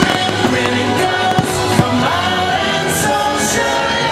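Fireworks-show soundtrack music with singing, loud and continuous, with a few sharp firework pops about a second and a half in.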